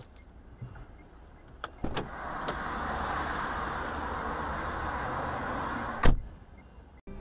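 Car crash: a knock about two seconds in, then a steady rushing noise for about four seconds, ending in a sudden loud impact, the loudest sound.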